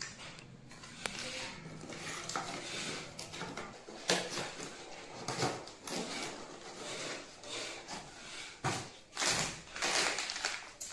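Cardboard product packaging being handled and unpacked by hand: irregular rustling and scraping of paper and cardboard, broken by several sharp knocks, the strongest about four and nine seconds in.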